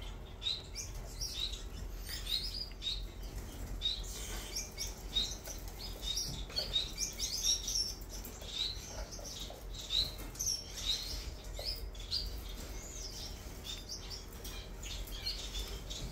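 Caged Gouldian finches calling with many short, high chirps, several a second, over a faint steady low hum.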